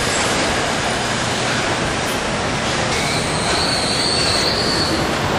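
Car assembly line machinery noise: a steady, dense mechanical din, with a high metallic squeal from about three seconds in that lasts over a second.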